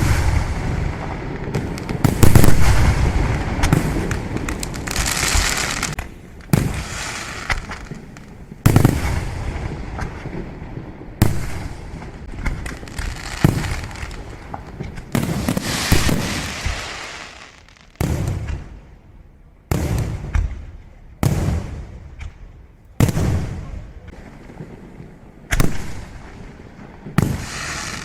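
Aerial fireworks shells bursting in quick succession, a sharp bang every one to three seconds, each dying away over a second or so, some trailing a hissing crackle.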